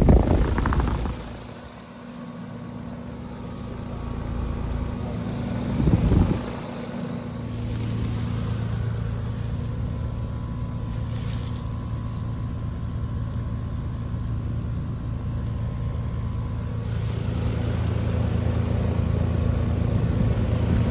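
Outdoor heat pump condensing unit running in cooling mode: a steady compressor hum under the rush of the condenser fan. Wind buffets the microphone at the start and again about six seconds in.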